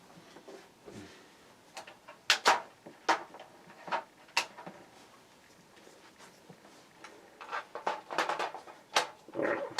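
Scattered sharp clicks and knocks of parts being handled and set down, about a dozen, with a busier cluster of rattling in the last two seconds.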